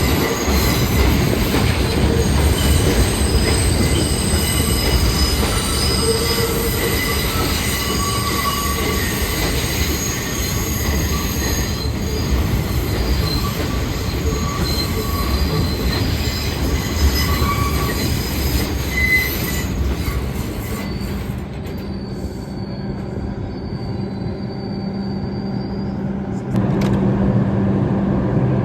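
R142 subway train rolling over the rails, its wheels squealing in several high steady tones over a low rumble. The squeal thins to a single high tone after about twenty seconds, and near the end a steady low hum starts abruptly.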